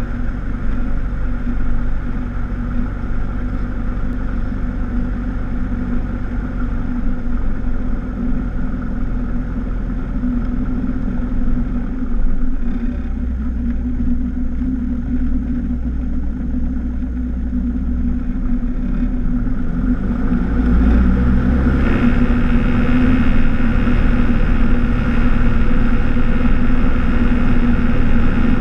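Cessna 172's piston engine and propeller running steadily at low power, then growing louder about twenty seconds in as power comes up for the takeoff.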